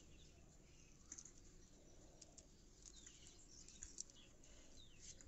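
Near silence, with a few faint bird chirps and soft crackles as a fire-charred cashew shell is picked apart by hand.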